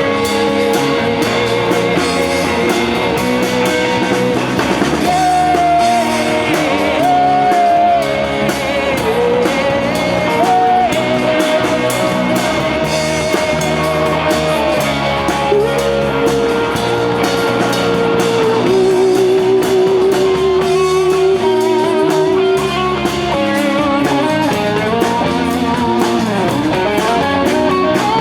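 Live rock band playing loudly: electric guitar over drums.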